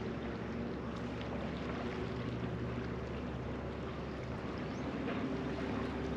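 Steady rush of fast-flowing river water, with a faint steady low hum underneath.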